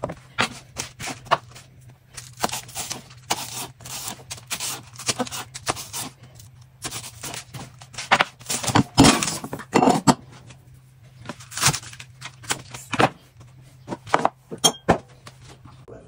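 Chef's knife slicing courgette and spring onions, the blade knocking on a plastic cutting board in quick, uneven strokes.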